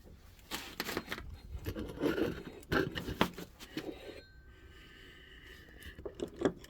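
Irregular scraping and light knocks as a small injection mould and press are handled by hand just after a polycarbonate shot. It is busiest in the first four seconds, quieter after, with two more knocks near the end.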